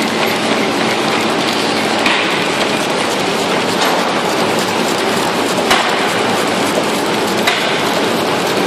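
Servo-driven horizontal packaging machine running, a steady mechanical clatter with a sharper click about every two seconds.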